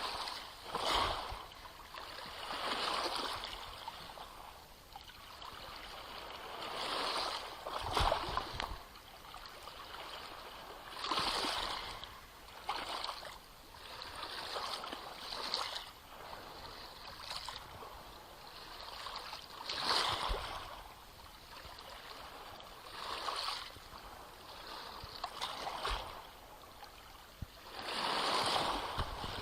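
Small Black Sea waves splashing and lapping at the shore, each wash swelling and fading every few seconds. A few heavier splashes land with a low thud.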